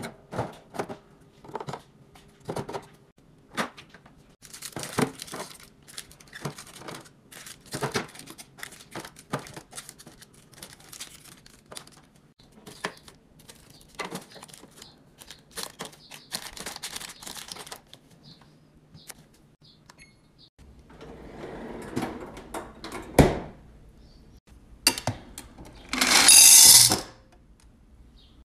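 Snacks, cans and candy packets being set into clear plastic fridge organiser bins: a string of light clicks, taps and crinkles of packaging on plastic. Later comes one sharp knock and, near the end, a louder rattle lasting about a second.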